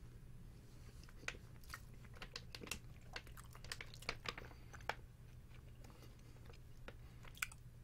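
Faint, scattered wet clicks of a person chewing beef jerky, over a low steady hum.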